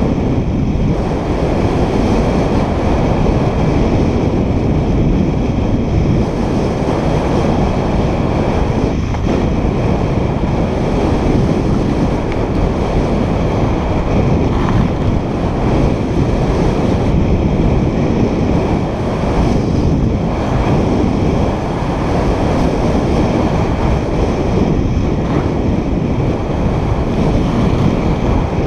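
Steady wind rush on a helmet-mounted camera's microphone during a fast downhill ski run, mixed with skis scraping over groomed snow.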